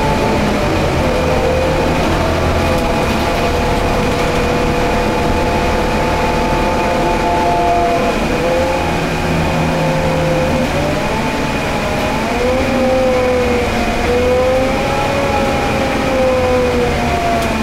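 Scania K320UB city bus with a ZF Ecolife automatic gearbox heard from inside the passenger saloon while driving: a steady low drone from the drivetrain, with several whining tones that dip and rise again about eight seconds in and from about twelve seconds on as road speed changes, over a constant high whine.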